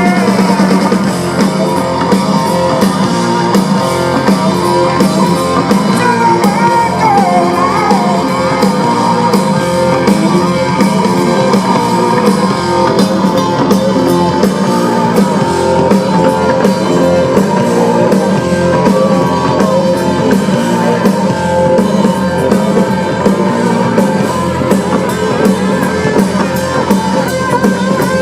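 Live blues-rock band playing an instrumental passage: electric guitar over bass and drums, the guitar bending notes.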